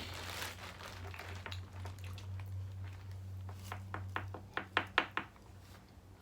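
Eating sounds: a quick run of sharp clicks and taps about four seconds in, over a low steady hum.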